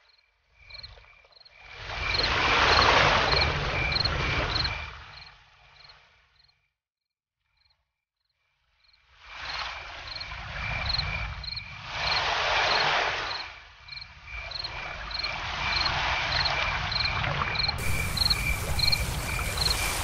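Cricket chirping in a steady, even pulse of about two chirps a second, under several slow swells of rushing noise with a low rumble. Everything cuts out for a couple of seconds partway through, then resumes.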